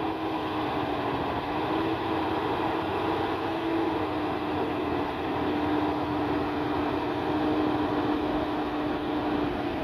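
Diesel engine of a loaded FAW tractor-trailer pulling it up a hill: a steady drone with a slightly wavering hum.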